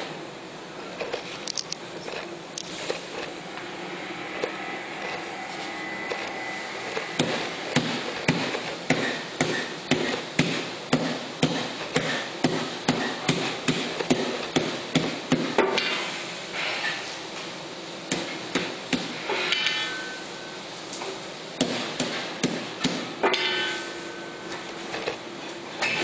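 A mallet striking repeatedly in runs of sharp knocks, about two blows a second, with pauses between the runs.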